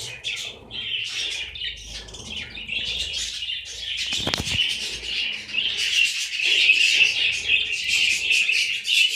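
A flock of caged budgerigars chattering and chirping without a break, growing louder in the second half. A short flutter of wings comes about four seconds in.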